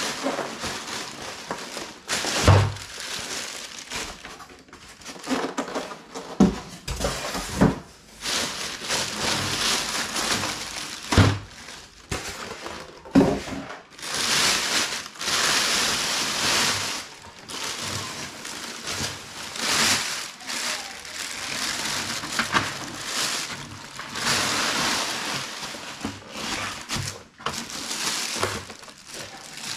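Thin plastic bag crinkling and rustling in long stretches as it is pulled off a laser printer, broken by several dull thumps as the printer and its foam packing are handled.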